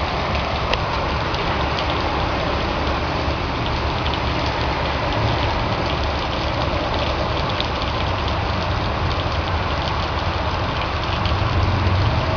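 Steady rain hiss with scattered drop ticks, over a low rumble of vehicle engines on a flooded street.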